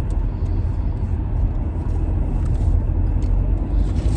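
Steady low rumble of a moving car heard from inside the cabin: road and engine noise with no sharp events.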